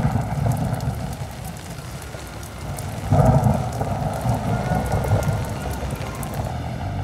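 Rain falling in a steady patter, with a loud low rumbling swell about three seconds in, like thunder.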